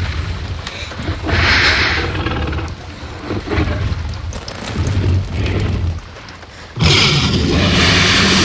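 Tyrannosaurus rex sound effect: deep, repeated booming rumbles, then a loud roar that starts suddenly about seven seconds in.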